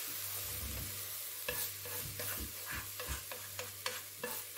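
Spatula scraping and tapping sliced leeks out of a hot non-stick frying pan into a bowl, a series of short scrapes and clicks over a steady sizzle from the still-hot pan.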